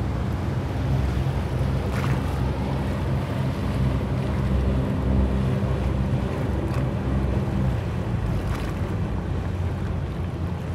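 Diesel engine of a small harbour workboat running steadily as it passes at speed, its hum fading near the end, with wind on the microphone and a few short splashes of water.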